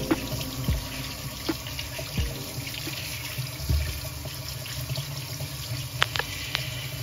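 Kitchen faucet running water onto potatoes in the sink as they are rubbed and peeled under the stream, with a few light clicks and a sharper click about six seconds in.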